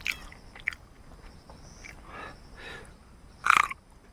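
Eating sounds from a mukbang of king chilli and noodles: soft, scattered chewing and mouth noises, with one short, louder sound about three and a half seconds in.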